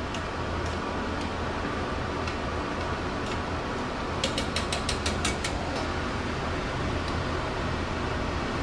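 Tomato salsa simmering in a stainless steel skillet over a steady hum and hiss, with a metal spoon working in the pan. About four seconds in comes a quick run of about eight light clicks.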